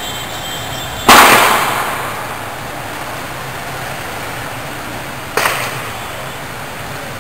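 Two sharp bangs, the first loud with an echoing tail and the second, about four seconds later, shorter and weaker: shots from tear-gas launchers.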